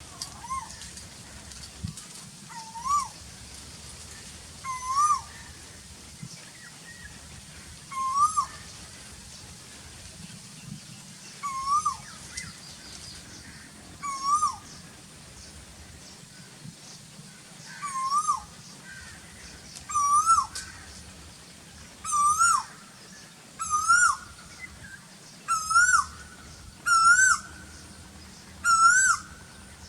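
Asian koel (koyal) calling its repeated rising 'koo-oo' note, about thirteen times. The calls come faster and climb a little higher in pitch toward the end, from roughly one every three seconds to one every second and a half.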